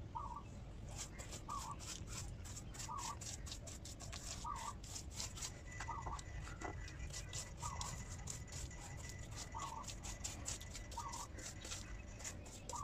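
A paintbrush scratching in quick strokes over rough concrete as waterproofing coating is brushed on, starting about a second in. Behind it a bird repeats a short call about every second and a half.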